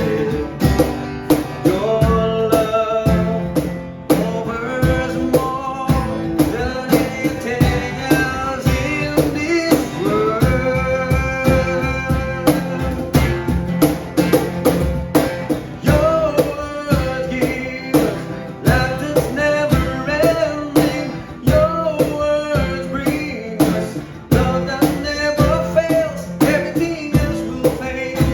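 Contemporary worship song: singing over guitar with a steady drum beat.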